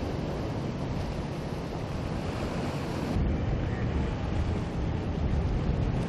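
Steady wind rumble on the microphone mixed with rushing water from a fast-moving warship's wake, the low rumble growing a little louder about halfway through.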